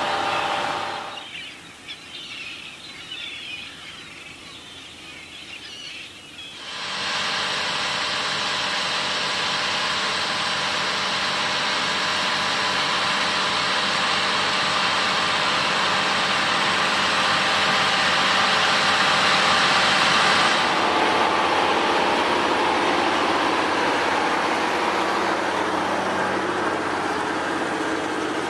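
Birds chirping in a quieter stretch, then large farm machinery running loudly and steadily, starting abruptly about seven seconds in.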